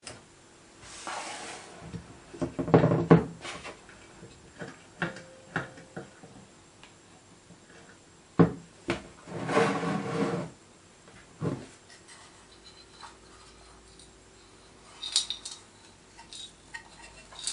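Hands handling a 1913 Märklin toy steam engine with a copper boiler on a black metal base: scattered knocks, clicks and metal clinks with brief rubbing as the parts are picked up and pulled apart, loudest in a cluster of knocks about three seconds in.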